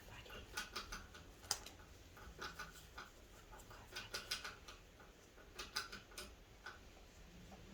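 Faint handling noises: scattered small clicks and taps, some in quick clusters, as wound-cleaning materials are handled with gloved hands.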